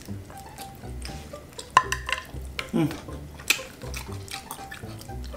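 Close-miked mouth and hand eating sounds: chewing, lip smacks and fingers picking at crispy fried tilapia and rice, with a few sharp clicks and a short hum from the eater near the middle.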